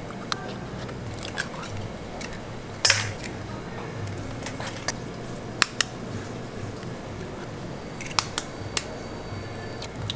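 Eggs being cracked one after another against a stainless steel mixing bowl: sharp shell taps every second or so, the loudest about three seconds in, over a steady low hum.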